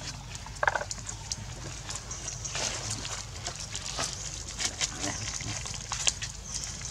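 Monkeys lapping and slurping milk from a plastic plate: a run of short wet clicks and smacks, with one brief high squeak about a second in.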